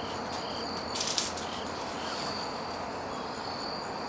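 Steady, high-pitched chirping of evening insects or birds over a soft outdoor hiss, with one brief rattling clatter about a second in.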